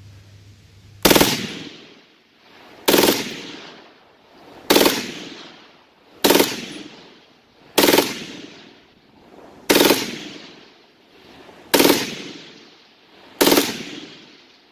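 Replica AN-M2 Stinger, a .30-calibre Browning aircraft machine gun, firing eight short bursts about every two seconds, each dying away over about a second.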